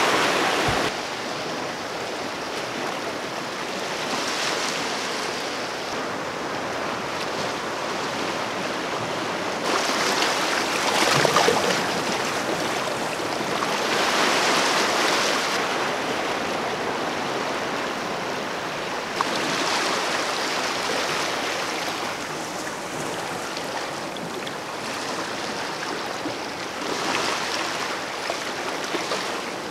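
Small sea waves washing in over a rocky shore ledge, a steady surf hiss that swells every few seconds as each wave comes in, loudest about a third of the way in.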